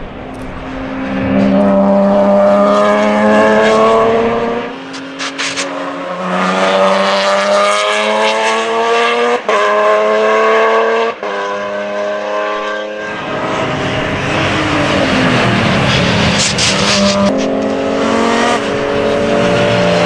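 BMW S50B32 3.2-litre inline-six of an E36 M3 GTR race car running hard at high revs: the pitch climbs again and again, broken by short drops that are typical of upshifts through its sequential gearbox. About two-thirds of the way through the pitch falls away in a long slide as the car passes, then climbs again near the end.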